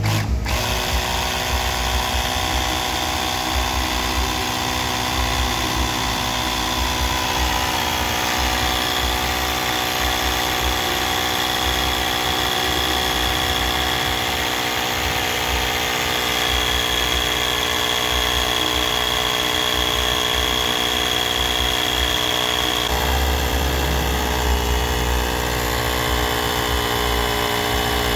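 Mini 12-volt electric tyre inflator (cigarette-lighter-plug air compressor) running steadily with a buzzing mechanical hum as it pumps up a motorcycle tyre. Its sound shifts slightly about two-thirds of the way through.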